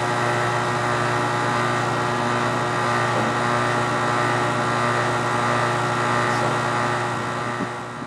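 R22 heat pump outdoor unit running: a steady compressor and condenser-fan hum, while stop-leak and refrigerant are charged in through the low side. It fades out near the end.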